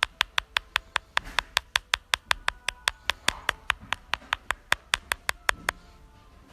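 Rapid, evenly spaced tapping clicks, about five a second, that stop about five and a half seconds in.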